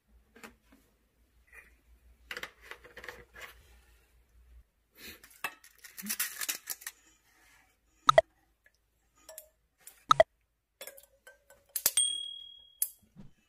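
Scattered kitchen clinks and taps of glass and utensils: quiet crackles and rustles in the first half, then a few sharp clinks, one leaving a brief ringing tone near the end.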